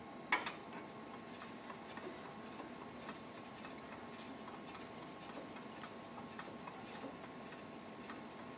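An Arkansas stone is drawn lightly along a speed skate blade clamped in a sharpening jig, in the final polishing stage. There is one sharp click about a third of a second in, then faint, scattered ticks of stone on steel.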